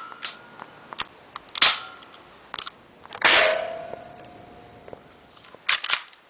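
Spring-powered Nerf pistol being test-fired with a homemade dart weighted by a pen barrel: sharp snaps and knocks at intervals. About three seconds in comes the loudest hit, followed by a ringing tone that fades over about a second and a half.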